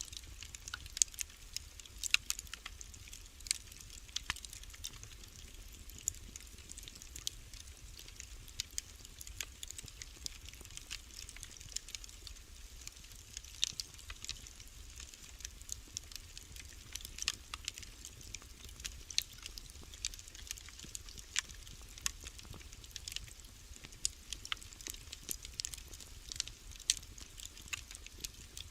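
Wood fire burning in a fireplace, crackling with frequent irregular snaps and a few louder pops, over a low steady hum.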